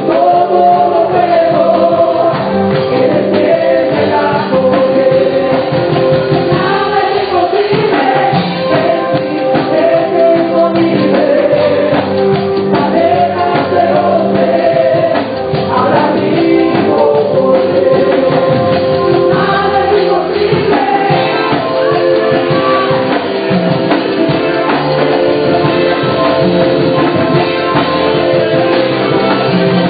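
A church praise team singing gospel worship music together on microphones, with a live band accompanying.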